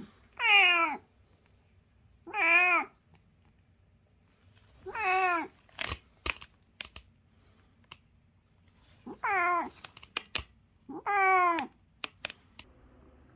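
A cat meowing five times, each meow short and spaced a couple of seconds apart, with a few sharp clicks in between.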